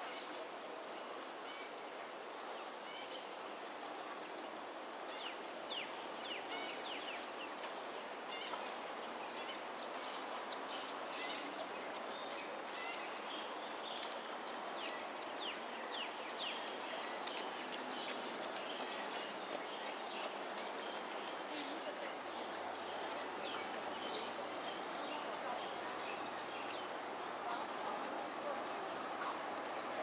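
Insect chorus: several high, steady, unbroken tones layered over a constant background noise, with short quick chirps scattered through the middle.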